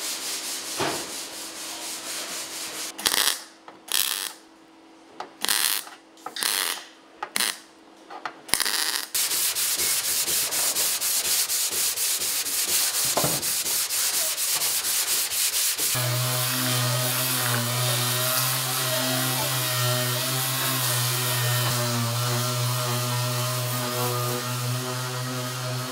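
Hand sanding of body filler on a car's steel body panel with a sanding block: a run of separate rasping strokes, then continuous sanding. For the last ten seconds a steady machine hum with a hiss over it takes over.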